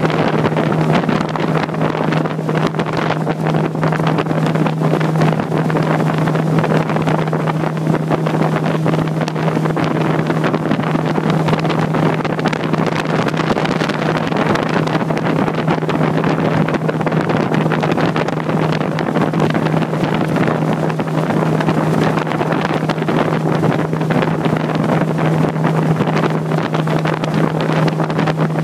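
Motorboat under way at a steady speed: the boat motor's constant drone at one unchanging pitch, with wind buffeting the microphone.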